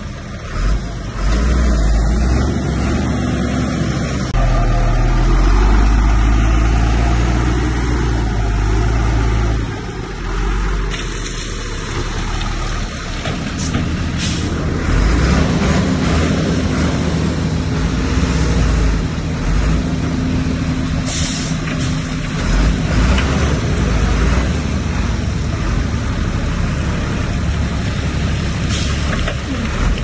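Heavy diesel earthmoving machinery running steadily, with a deep engine note that is loudest in the first third. Several short hisses come in the second half.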